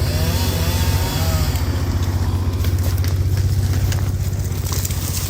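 Heavy diesel engine of earth-moving machinery running steadily with a low, rapid throb. A few faint wavering high whines come in the first second or so.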